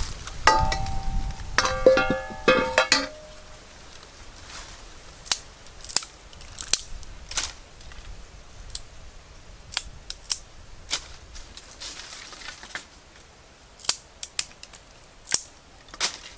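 Dry sticks and twigs snapping sharply, one at a time, every second or so, as kindling is broken and laid for a cooking fire. A few ringing tones sound in the first three seconds.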